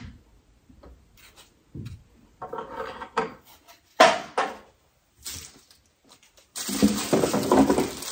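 Handling sounds of unpacking: a sharp knock about four seconds in as a wooden-framed board is set down on a table, then paper packaging rustling near the end as hands dig into a box.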